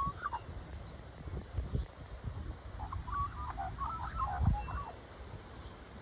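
Australian magpie warbling: a brief phrase at the start, then a longer run of warbled notes from about three to four and a half seconds in, over a low uneven rumble.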